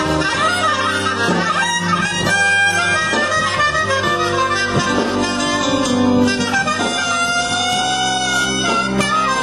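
Soprano saxophone playing a melody over backing music with a steady bass line underneath.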